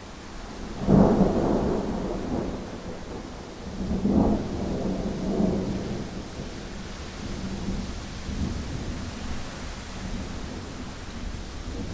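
Thunder over a steady wind noise: a loud rumbling clap about a second in, a second rumble about four seconds in, then fainter rolls of thunder.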